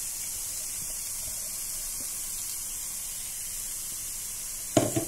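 Onion paste and freshly added tomato puree sizzling in a nonstick pan, a steady high frying hiss. Two sharp knocks near the end.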